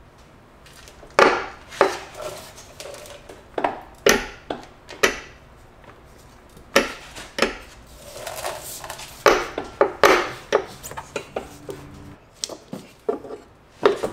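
Irregular metal knocks, clunks and scrapes of a car's driveshaft being worked free of its carrier bearing mount and lowered by hand.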